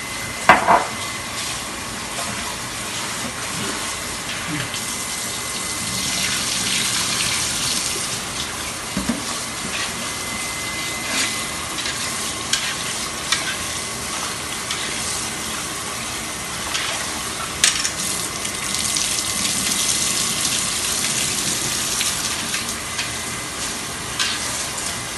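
Tap water running while rice is rinsed by hand in a pot, the water swelling and easing as the grains are swished, with a few sharp knocks against the pot.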